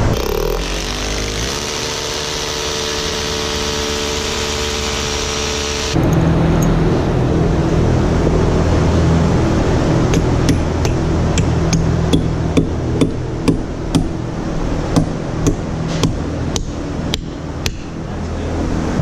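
A corded hammer drill spins up and runs as it bores through a rubber stall mat into the concrete, stopping abruptly about six seconds in. From about ten seconds in, a hammer strikes a run of around fifteen sharp blows, driving nails down through the mat into the concrete to fasten it. A steady low hum runs underneath.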